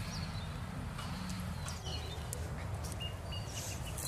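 Small birds chirping in short, high calls, with a quick run of brief notes about three seconds in, over a steady low rumble.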